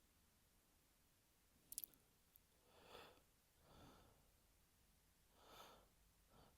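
Faint, audible breaths of a person with an allergy attack: a breath in and out about three seconds in and another about five and a half seconds in, after a couple of small clicks.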